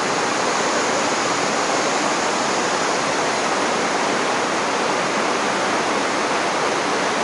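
Shallow rocky river rushing over stones in a white-water riffle: a steady, even noise of running water.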